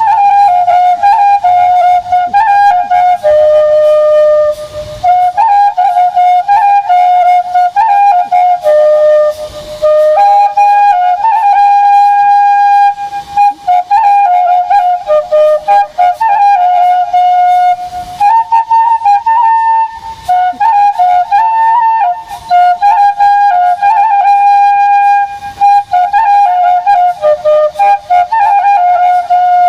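Bansuri (bamboo transverse flute) playing a solo song melody, a single line of held and stepping notes in its middle register, phrases broken by short breath pauses.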